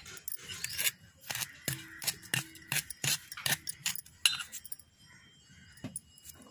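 Steel spoon clinking and scraping against a steel plate while stirring ghee into powdered sugar: a quick, irregular run of sharp taps that thins out about four and a half seconds in, with one last tap near the end.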